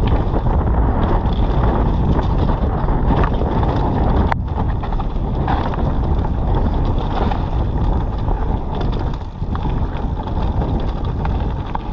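Mountain bike descending a wet trail: wind buffeting the microphone over the rumble of tyres on dirt, with a steady clatter of the bike over bumps.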